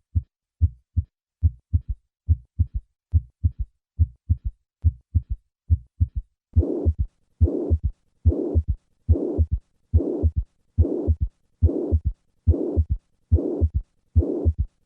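Recorded heart sounds at about 72 beats a minute: first normal first and second heart sounds, then a low third heart sound added after the second sound. About six and a half seconds in, a pansystolic mitral regurgitation murmur joins, a rushing noise filling each beat from the first heart sound up to the second. Here the third heart sound can be a sign of a large regurgitant volume or left ventricular dysfunction.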